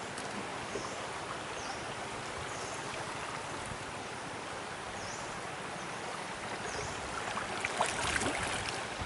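Mekong River floodwater rushing and lapping against a small moving boat, a steady hiss of flowing water that grows a little louder with splashes near the end.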